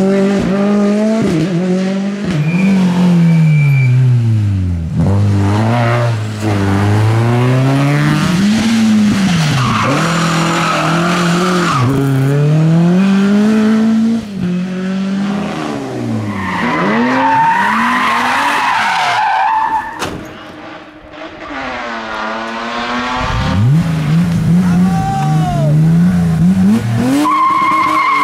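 Rally cars on a hillclimb, engines revving hard up and down through the gears, with tyres squealing through the corners. About twenty seconds in the engine fades briefly, then a car accelerates hard again with more tyre squeal near the end.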